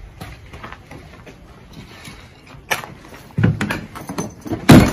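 A wooden ammunition crate being handled and opened: a few sharp clicks and knocks, then heavy wooden thuds, the loudest near the end.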